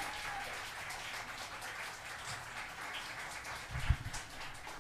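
Light, scattered clapping from a small audience as a band's song ends. A brief, dull low thump about four seconds in.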